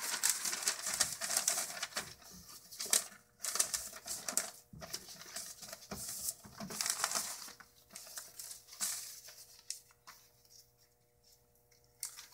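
Sheets of newspaper rustling and crinkling in irregular bursts as they are handled and pressed flat into the bottom of a plastic worm-bin tray. The rustling dies down near the end.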